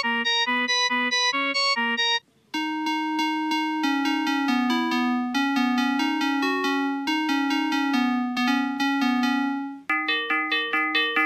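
Synthesized keyboard-like melody loops played one after another: a short repeating figure, a brief silence about two seconds in, a longer sustained tune, then a new figure of short repeated notes near the end.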